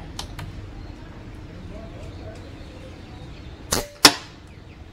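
Evanix Vortex .177 air rifle firing a 20-grain slug: two sharp cracks about a third of a second apart near the end, the second louder, fitting the shot and the slug striking the target 50 yards off. Two faint clicks come shortly after the start.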